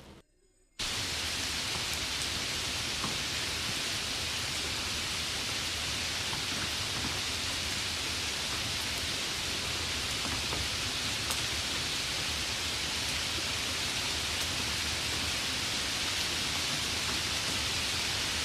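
Steady rain hiss that starts abruptly just under a second in, after a moment of near silence, with a few faint scattered drop ticks.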